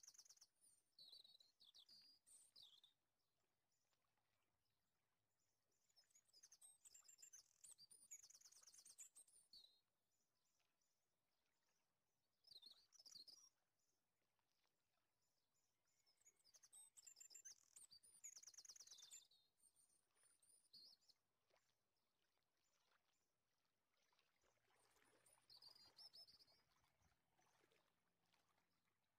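Faint bird chirping coming and going in short bursts, with a couple of quick high trills, over near-silent room tone.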